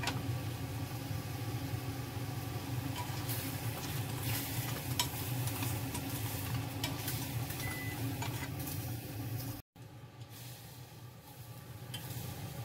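Dashi simmering in a pan on the stove under a steady low hum, with a few light clicks of utensils. About ten seconds in it cuts off sharply to a quieter kitchen background.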